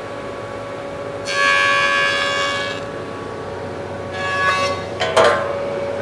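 Jointer running with a steady hum while a board is face-jointed: a loud high cutting whine as the cutterhead bites about a second in and lasts about a second and a half, a shorter cut around four seconds in, then a sharp knock a little after five seconds.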